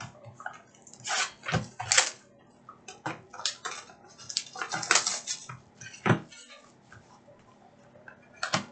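Hands opening a trading card box and handling its packaging: repeated bursts of cardboard scraping, rustling and light clacks. The loudest come about two and six seconds in.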